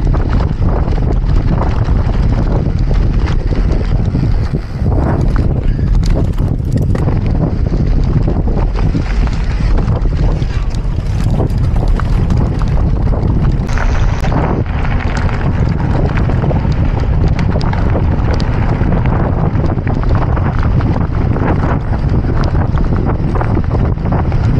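Heavy wind buffeting the microphone of a camera riding on a moving mountain bike, with scattered clicks and knocks through it.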